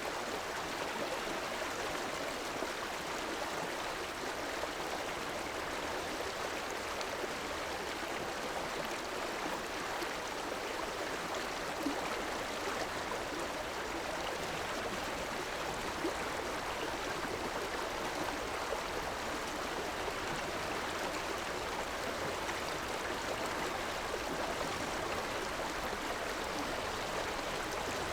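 A river's water flowing and rushing steadily, with a continuous even splashing hiss and small gurgles.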